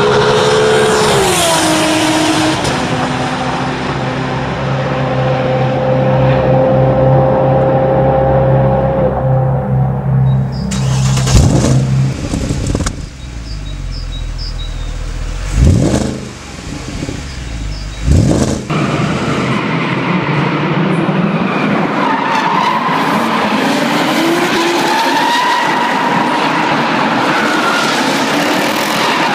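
A steady drone with a deep hum, dropping in pitch about two seconds in, then three sharp sweeping whooshes between about eleven and nineteen seconds in. From then on a drift car slides sideways, its engine revving up and down over tire squeal.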